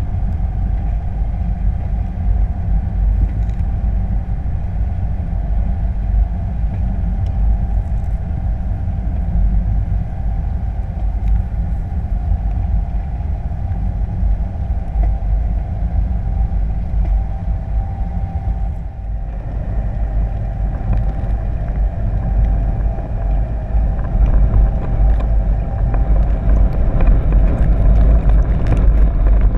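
Underwater rumble from a camera on a trawl net being towed and hauled in: water rushing past the camera with the trawling boat's engine and propeller, plus a faint steady whine. It dips briefly about two-thirds of the way through and grows louder near the end.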